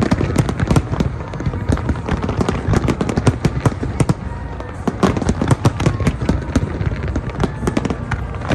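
Aerial fireworks bursting in a dense barrage: rapid overlapping cracks and bangs over a continuous low rumble.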